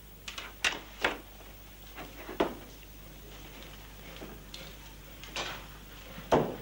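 About six sharp knocks and clicks, unevenly spaced, the loudest near the end, over a faint steady low hum.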